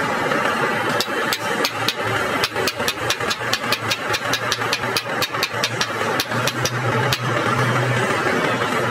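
Small hammer rapidly tapping a brass pipe neck on a truck radiator tank: light metallic taps, about four or five a second, that stop about seven seconds in. A steady engine-like hum runs underneath.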